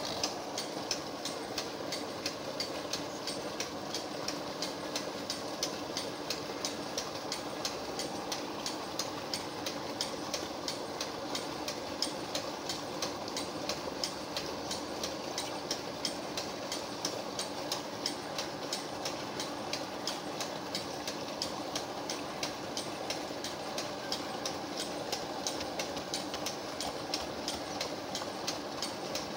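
A single-cylinder engine idling steadily, with an even, regular beat a few times a second.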